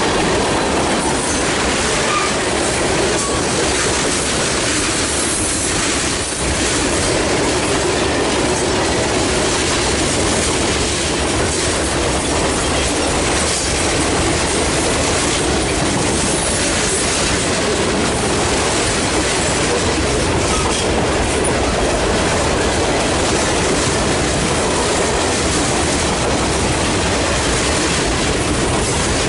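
Boxcars and tank cars of a Norfolk Southern manifest freight train rolling past close by: steel wheels running on the rails in a loud, steady rumble.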